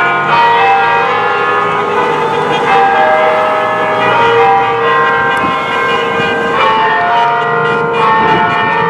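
Newly restored bell-tower bells ringing: a steady run of struck notes, each one ringing on under the next, so that many tones overlap.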